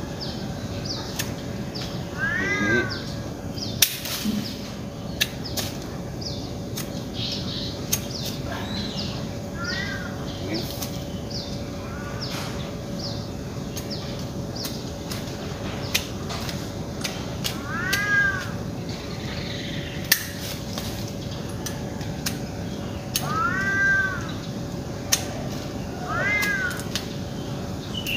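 A cat meowing about five times, each a short call that rises and falls in pitch, with sharp clicks in between and a faint steady hum underneath.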